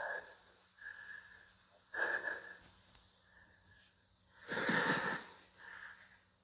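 A few short, breathy puffs of air on a phone's microphone, the loudest about four and a half seconds in.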